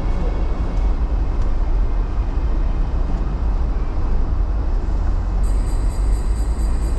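A loud, steady low rumble of noise, without clear tones, like a vehicle running or wind on the microphone. Music comes in faintly near the end.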